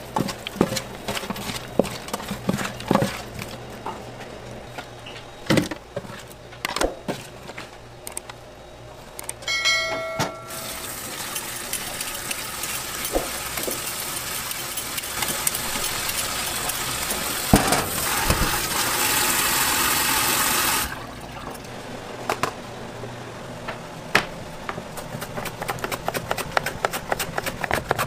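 Raw shrimp squelching and clicking as gloved hands turn them in a steel tray, then tap water running steadily into a metal sink over a potato for about ten seconds in the middle. Near the end, fast repeated scraping strokes of potato being sliced thin on a mandoline slicer.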